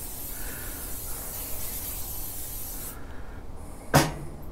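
Aerosol can of canola oil cooking spray hissing as it coats the inside of a kamado grill's bowl with oil to season it, stopping sharply about three seconds in. A brief knock follows near the end.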